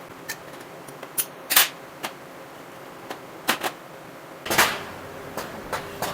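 Irregular sharp clicks and knocks from hand tools and parts being handled while a Honda CD70 engine is stripped down, loudest about one and a half seconds in and as a short cluster near the middle.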